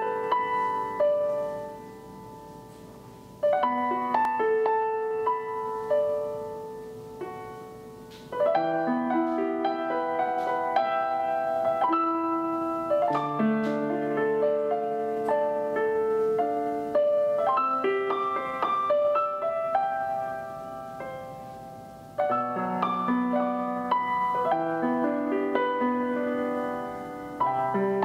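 Background piano music: a slow, gentle tune of held notes that ring and fade, starting a new phrase every few seconds.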